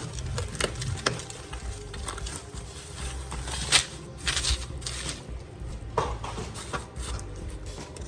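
Handling noise from unpacking rocks: scattered clicks and knocks, with a louder rustle of packaging about four seconds in.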